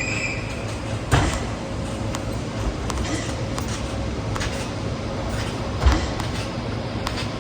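Steady background noise with two sharp thumps, one about a second in and a louder one near six seconds.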